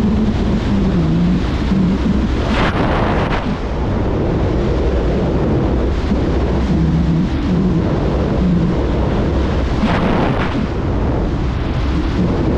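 Loud, steady rush of freefall wind buffeting the camera microphone, with a wavering low whistle. The noise surges briefly about two and a half seconds in and again around ten seconds in.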